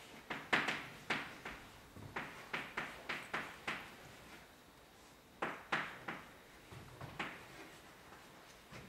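Chalk tapping and scratching on a chalkboard as words are written: clusters of short, sharp taps and strokes, with pauses of about a second between groups.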